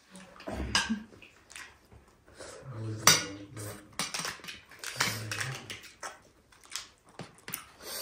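Cutlery clinking and scraping against plates and bowls during a meal, in irregular knocks, the sharpest clink about three seconds in.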